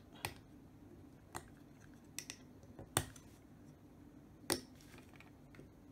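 Scattered sharp clicks and taps of a small toy scope tube and its lens being handled and pressed together by hand. There are about six clicks, the loudest about three seconds in.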